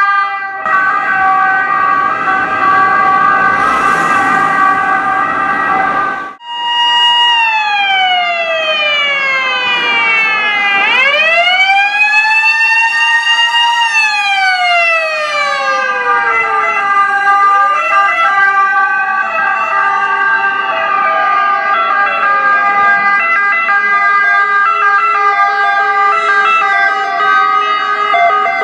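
Several ambulance and emergency-vehicle sirens sounding at once: a layer of steady siren tones throughout, and over it a wailing siren that slowly falls, rises and falls again. The sound breaks off briefly about six seconds in.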